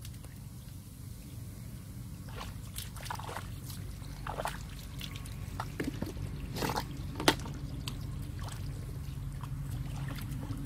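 Hands squelching and sloshing through shallow, watery mud as a person gropes for fish by hand. A run of short wet splashes starts about two seconds in, and the sharpest one comes about two-thirds of the way through.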